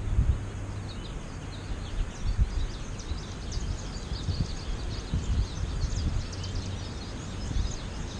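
A flock of American goldfinches calling, many short high chirps overlapping, with gusts of wind rumbling on the microphone.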